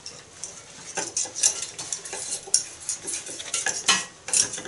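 Thin wire with a bent, hooked tip scraping and clicking irregularly against a sink's metal drain as it is pushed and worked down the clogged drain to snag debris. The scraping is loudest about four seconds in.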